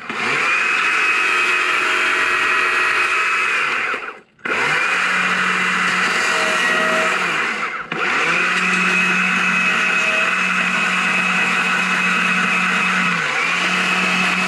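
Chainsaw running at speed while carving into a maple log, a steady whine. It cuts out about four seconds in and starts again at once, with a brief dip near eight seconds.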